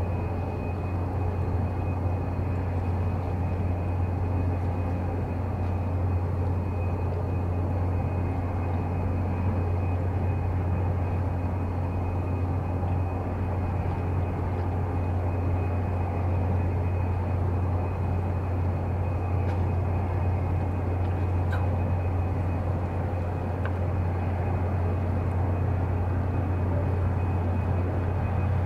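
A steady low hum, even in pitch and level throughout, over a faint wash of background noise.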